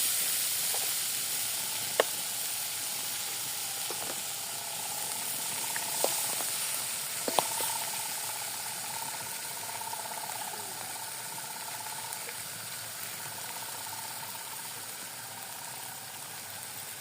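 Food sizzling as it fries in oil in a pan, a steady hiss broken by a few sharp knocks.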